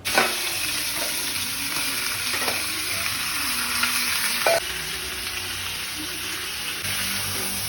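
Raw pork pieces dropped into hot oil, frying with a sudden, steady sizzle that eases slightly about halfway through, with a few short knocks of a utensil against the pan.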